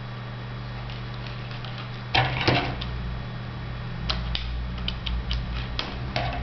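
Hands tying fishing line around a bundle of plastic drinking straws: a burst of rustling and rubbing about two seconds in, then a run of small sharp clicks, over a steady low electrical hum.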